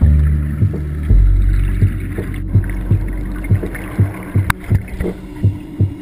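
Underwater recording in an aquarium tank: the low rumble of scuba exhaust bubbles, with a regular low throb about twice a second.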